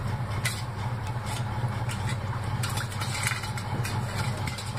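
A steady low hum, with a few faint, short clicks scattered through it.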